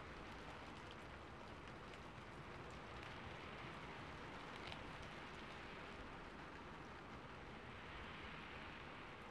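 Steady rain falling: an even hiss with scattered faint drop ticks, no thunder.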